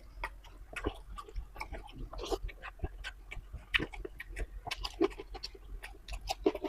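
A person chewing beef dendeng close to the microphone, with irregular wet clicks and smacks of the mouth.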